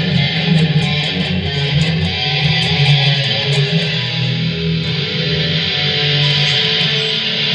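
Jackson Stealth electric guitar with stock Jackson pickups, played through a DigiTech GSP2101 rack preamp into a Hughes & Kettner amp and a Marshall cabinet with Celestion speakers: a distorted metal tone with sustained, ringing chords and notes.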